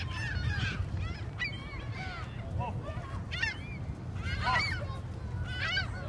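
A flock of gulls calling overhead: many short squawking cries overlapping in bunches, busiest about three and a half and four and a half seconds in.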